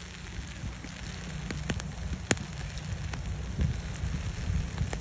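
Low, steady road rumble inside a moving vehicle, with a crackling hiss and scattered sharp clicks, typical of tyres rolling over a wet, gritty road.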